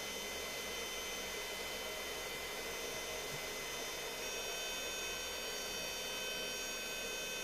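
Steady electrical hiss with a low hum and several faint, steady high-pitched whining tones, unchanging throughout.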